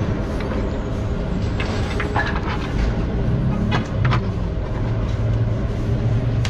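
Street noise: a steady engine hum of traffic, growing stronger about halfway through, with a few short clicks and brief distant voices.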